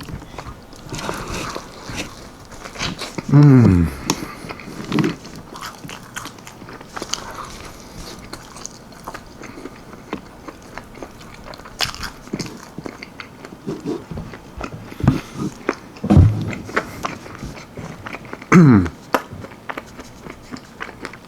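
Close-miked biting and chewing of baked chicken wings with a dry almond-flour breading: many small crunching, sticky clicks. There are three short hums that fall in pitch.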